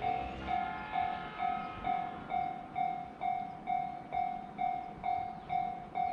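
Japanese level-crossing alarm ringing its steady "kan-kan": one tone struck over and over at about two strokes a second.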